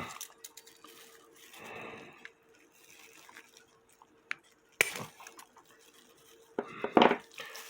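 Pliers clicking and clinking on a metal clock movement while pressing a small metal pin into its hole to hold the count wheel on: a few scattered sharp clicks with a soft scrape, the loudest cluster near the end.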